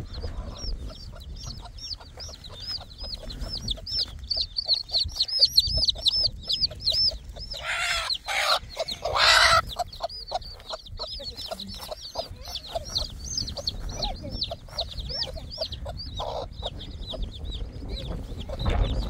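Domestic chicks peeping rapidly and without a break, with a hen giving two louder calls a little before the middle.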